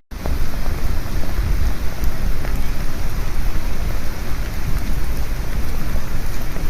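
Heavy rain pouring down in a storm: a dense, steady roar with a strong low rumble. It starts abruptly after a split-second gap.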